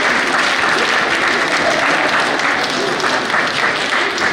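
Audience applauding, many hands clapping steadily in a large hall.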